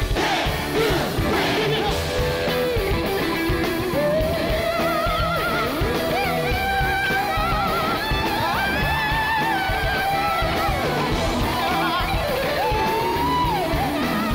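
Live rock band playing an electric guitar solo over drums and bass, with long held notes that bend and waver in pitch.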